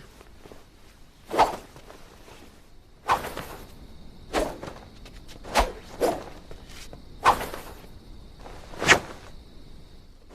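A sword being swung through the air in practice: about seven sharp swishes, a second or so apart, with two close together in the middle.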